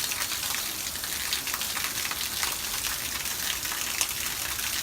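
Steady hiss of running water with many small crackling splashes throughout.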